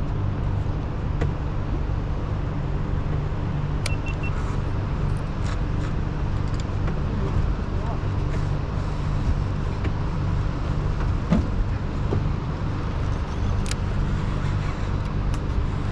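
An engine runs steadily with a low, even hum, and a few sharp clicks sound over it.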